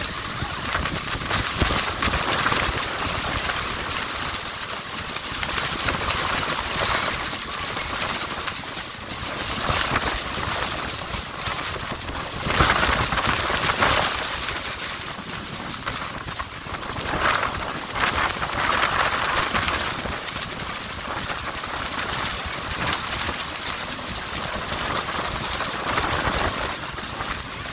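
Wind buffeting a phone microphone on an open tour-boat deck, over the rush of churning water below Niagara Falls. The noise swells and fades irregularly every few seconds.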